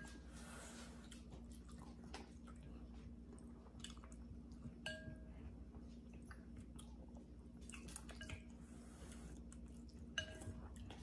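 Quiet eating of noodles in broth: soft chewing and slurping, with utensils clicking and clinking lightly against glass bowls about five times, each clink ringing briefly. A faint steady hum runs underneath.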